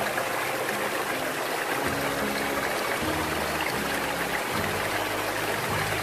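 Mountain stream rushing and splashing over rocks below a small waterfall, a steady even rush of water. Low musical notes come in underneath about two seconds in.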